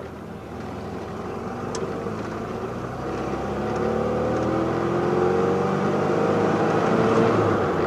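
Car engine pulling steadily as the car accelerates to about 35 mph, its note climbing slowly, with wind and road noise growing louder alongside. Heard through a camcorder's built-in mic inside a home-made wind box mounted on the outside of the car.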